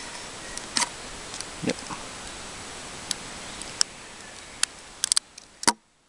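Scattered sharp metallic clicks and taps of a stainless-steel Leatherman Wingman multi-tool being handled, with a quick cluster near the end and the loudest knock as it is laid down open on a wooden bench.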